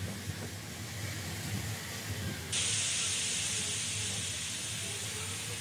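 Low rumble and hum of a model train running on its track. About halfway through, a steady steam hiss starts suddenly and holds, a steam-locomotive sound effect for the model tank engine.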